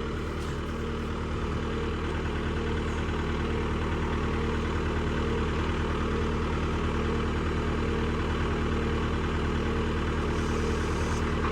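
Tractor engine running steadily at a constant speed, driving a PTO post-hole auger, with a little more level as it goes on.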